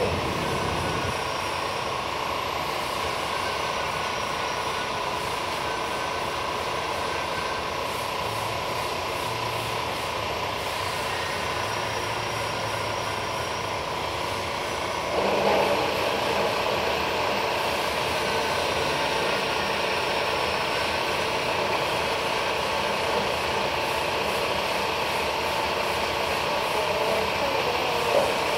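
Metal-cutting band saw running steadily with a constant whine as its head feeds down through the stock. About halfway through the noise turns louder and harsher.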